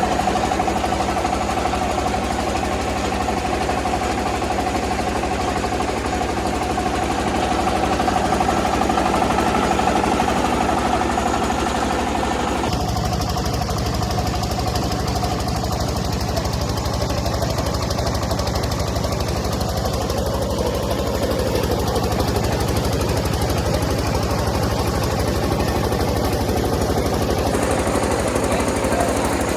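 Rice milling machine running steadily with a rapid, even mechanical knocking; the sound changes abruptly about thirteen seconds in and then runs on steadily.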